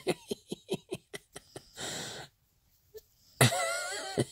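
A man laughing in quick, short breathy bursts, about five a second, then a breath, and near the end a longer voiced laugh that wavers in pitch.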